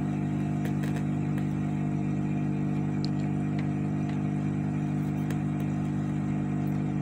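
Steady electrical hum from the soldering bench equipment, with a few faint light clicks during the soldering.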